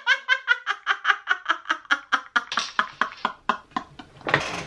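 A man laughing hard in a long run of quick 'ha-ha-ha' pulses, about six a second, growing weaker, then a loud gasping in-breath near the end.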